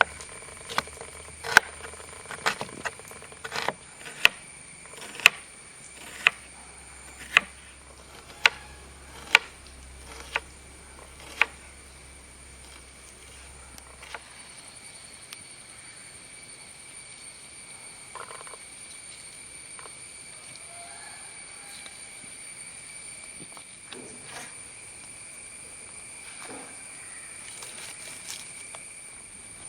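Knife chopping onions on a cutting board: about a dozen sharp chops, roughly one a second, stopping about twelve seconds in, followed by a few faint knocks. Insects chirr steadily with a high, even tone throughout.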